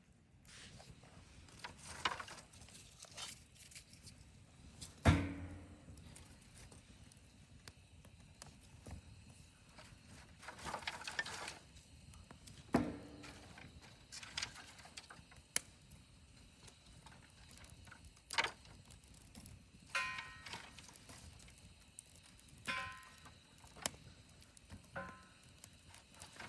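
Wood fire in a stainless-steel Solo Stove Yukon fire pit, with sparse knocks and pops a second or two apart; the loudest knock comes about five seconds in, and one near the middle rings briefly. A faint steady high hum lies behind.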